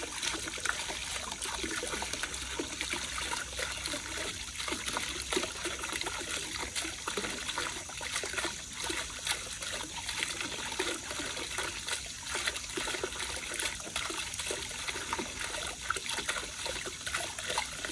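Water from a small homemade cement fountain's jet splashing and trickling steadily back into its basin.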